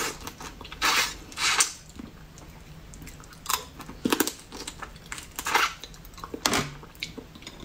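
Close-miked eating: biting and chewing a piece of spicy crab leg, with irregular sharp crunches and wet smacks.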